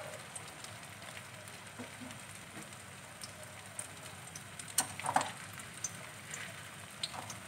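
Wheat-flour chilla batter sizzling steadily in hot ghee in a frying pan, with a scatter of small crackles. A couple of light clicks come about five seconds in.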